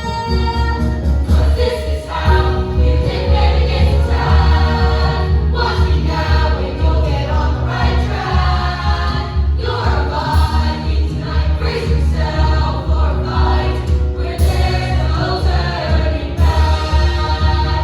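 Music: a choir of voices singing a song over an accompaniment with a strong, steady bass.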